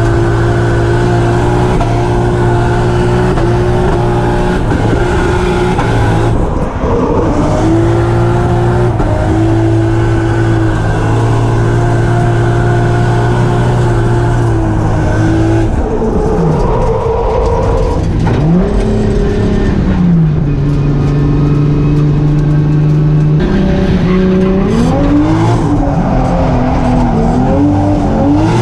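Drift car engine held high in its revs for long stretches, its pitch dropping and climbing back up twice in the second half, with tyre squeal.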